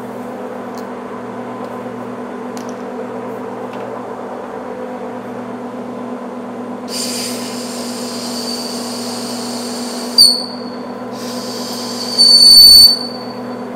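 Metal lathe running with a steady gearbox and motor hum while a boring bar cuts a chamfer in a sprocket bore. The cutting tool squeals high-pitched: once from about seven seconds in, with a sharp jump just after ten, and again louder near the end.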